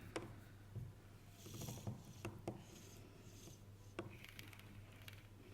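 Faint handling noise from the parts of a disassembled electric drill: a few sharp clicks and light knocks with soft rustling between them.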